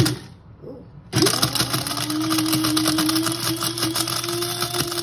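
A knock right at the start, then an electric blade spice grinder switches on about a second in and runs steadily, its motor whine rising slightly as it spins up and then holding, with dried jalapeño pieces rattling inside as they are ground to powder.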